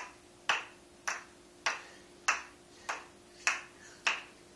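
Wooden kendama ball clacking into the cups again and again as it is juggled between them. The sharp clacks come in a steady rhythm, a little under two a second, each with a short ring.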